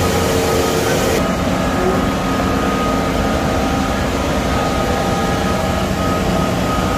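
Diesel engine of a Kubota DC95GM combine harvester running steadily as the machine moves under its own power. The sound shifts abruptly about a second in.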